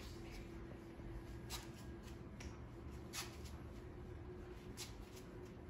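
Quiet indoor room tone: a steady low hum with a faint held tone, and a few soft sharp clicks about a second and a half apart.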